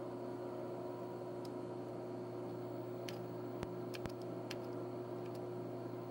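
Steady low hum from the powered-on Fadal 4020 vertical machining center, with a few faint clicks of keys being pressed on its control-panel keyboard.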